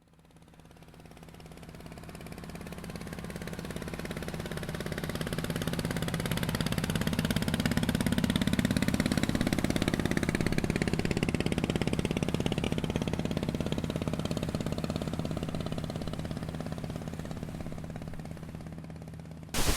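An engine running steadily with a low, pulsing tone. It grows louder over the first half and then slowly fades, like something passing by.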